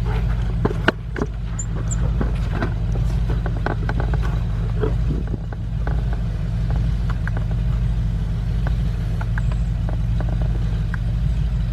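Steady low mechanical hum, even and unchanging, with scattered light clicks and knocks throughout.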